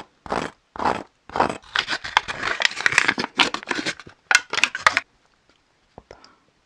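Food packaging being torn open and crinkled: three short rips about half a second apart, then a few seconds of continuous crackly crinkling and tearing that stops about five seconds in.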